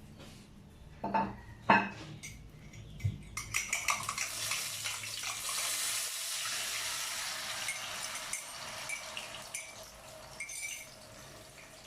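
Metal cookware and utensils clanking twice, then a steady hiss with scattered clinks for several seconds that fades near the end: kitchen work with a pan or under running water.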